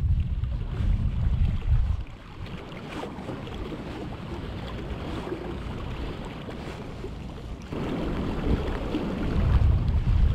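Gusty wind buffeting the microphone, strong for the first two seconds and again from about eight seconds in. Between the gusts the steady rush of the fast-flowing river can be heard.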